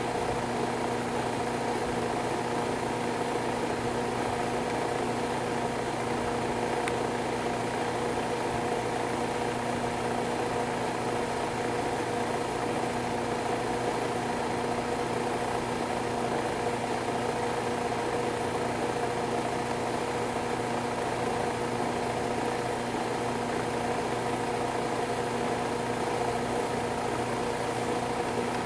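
A steady machine hum that holds one unchanging pitch throughout, with no starts, stops or changes.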